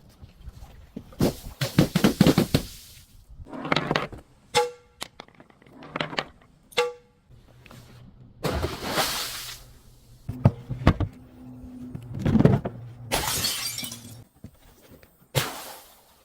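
Glass bottles being crushed and smashed: a series of separate crunches and shattering bursts, with two short ringing clinks of glass partway through and a bright shatter near the end.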